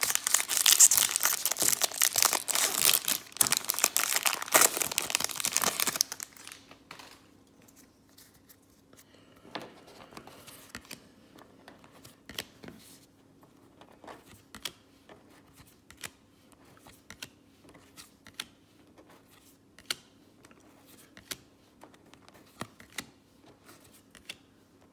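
Wrapper of a baseball card pack torn open and crinkled for about six seconds, then soft, scattered clicks of cards being handled and flipped.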